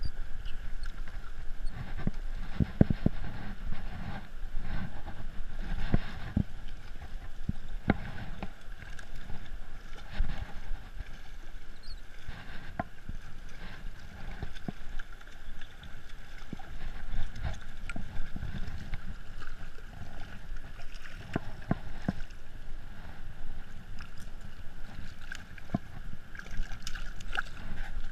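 River water running over rocks, with irregular knocks, bumps and rubbing from a body-mounted action camera as the angler moves.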